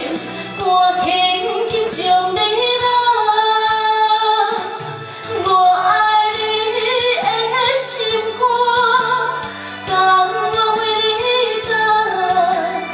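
A woman singing a Taiwanese Hokkien ballad into a microphone over a karaoke-style backing track, her voice holding and sliding between long notes.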